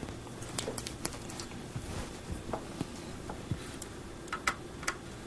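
Faint scattered clicks and taps of hands handling and pressing on electronics development boards, several in quick succession near the end, over a faint steady low hum.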